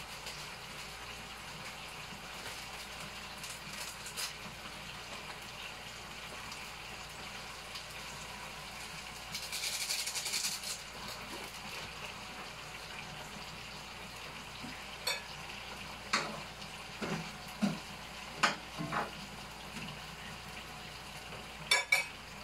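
Vegetables sizzling in hot oil in a wok on a gas stove, with a louder burst of sizzling for about a second near the middle. Several sharp clinks of kitchen utensils come in the last third.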